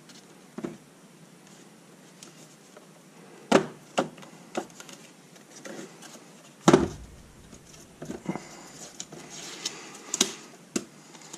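Knocks and clicks of taped-together acrylic box panels being handled and turned over, with one heavier thump about two-thirds of the way through. Near the end, masking tape is pulled and pressed onto the joints.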